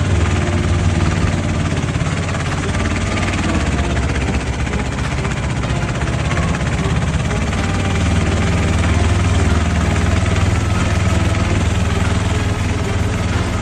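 Patpat farm utility vehicle's diesel engine running steadily while driving off-road, with a deep low engine note that picks up slightly about eight seconds in.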